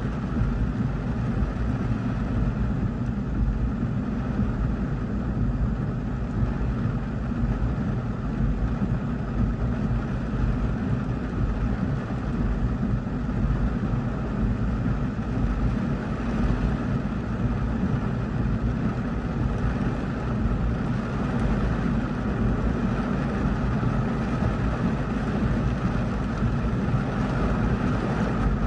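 Heavy rain beating on a car's roof and windshield, heard from inside the cabin: a steady, dense rush with a deep rumble underneath.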